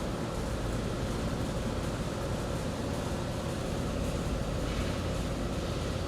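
Steady low hum and hiss of background noise, even throughout, with no distinct clicks or knocks.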